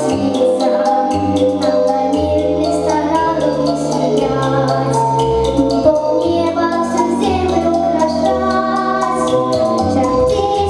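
A song played over a backing track with sustained bass notes, with a girl's voice singing.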